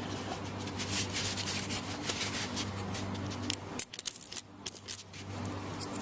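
Irregular scratching and rubbing, many small scrapes and clicks, over a steady low hum; the level dips briefly about four seconds in.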